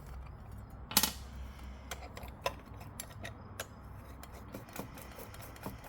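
Small metal clicks and clinks of tools and parts being handled on a workbench, with one louder clatter about a second in and scattered lighter ticks after it.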